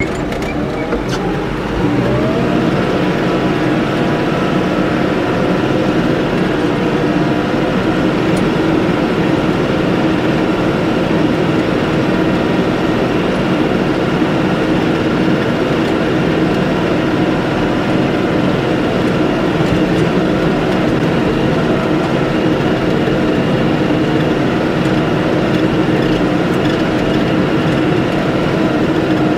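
New Holland tractor's diesel engine revving up about two seconds in, then running steadily at high throttle under load as it climbs a steep snowy hill.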